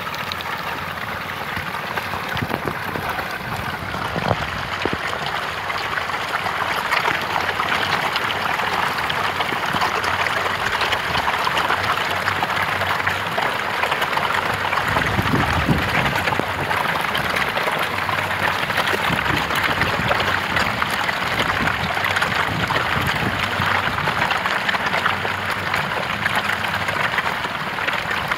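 A dense mass of farmed catfish thrashing in shallow water over a heap of feed pellets: continuous splashing made of countless small slaps and splashes. It grows a little louder after the first several seconds.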